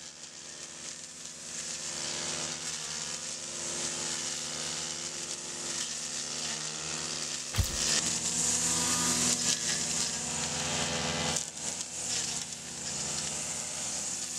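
Gas-powered brush cutter running and chewing through dry brush, with a crackling hiss over the engine's drone. It fades in at the start, and a sharp knock comes about halfway through, after which it runs louder.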